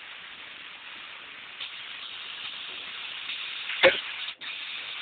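A steady hiss, heard through narrow call audio, slowly getting louder, with one short sharp sound just before four seconds in.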